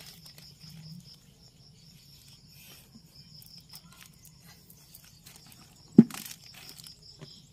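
Steady insect chirring, a high, evenly pulsing note, with faint rustling of plastic sheeting being handled. A single sharp click about six seconds in is the loudest sound.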